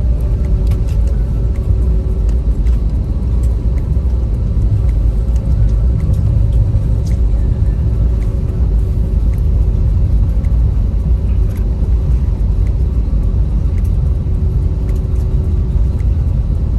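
Steady low rumble from inside a moving vehicle, with faint scattered ticks and clicks.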